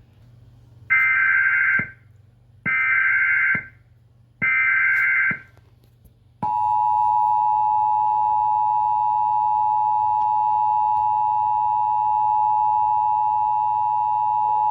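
Emergency Alert System header tones: three roughly one-second bursts of the warbling SAME data signal, then the steady two-tone EAS attention signal, held about eight seconds before it cuts off sharply.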